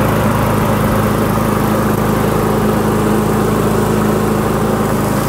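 Lawn-Boy push mower's small engine running at a steady speed.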